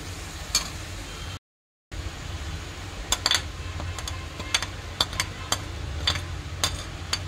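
Steel spoon clinking and scraping against the metal pot of a pressure cooker while stirring mutton pieces with spices, in irregular sharp clinks that come thicker in the second half. The sound cuts out briefly about a second and a half in.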